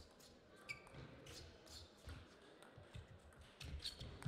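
Table tennis rally: a quick run of sharp clicks as the ball is struck by the bats and bounces on the table, with the players' soft footwork thumps on the court floor between them.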